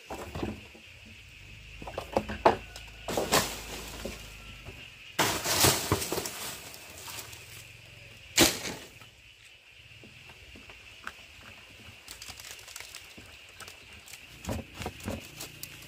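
Hollow knocks and clatter of bamboo poles being handled against a bamboo frame, with a stretch of dry rustling from about five to six and a half seconds in; the sharpest knock comes about eight seconds in, followed by lighter taps.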